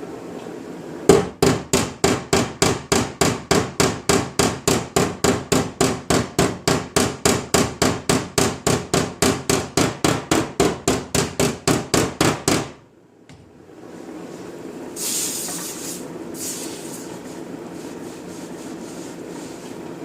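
Hand hammer tapping rapidly on the van's sheet-steel quarter panel, about four even blows a second for some eleven seconds, working down stretched metal. The hammering stops suddenly, and a short hiss follows a couple of seconds later.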